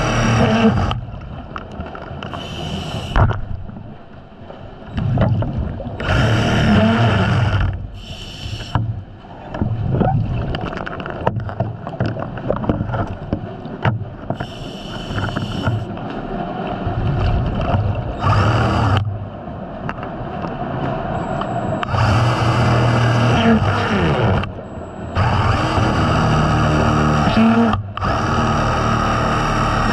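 Scuba diver breathing through a regulator underwater: one- to three-second bursts of exhaled bubbles rumbling, alternating with hissing inhalations every few seconds, with a few sharp knocks in between.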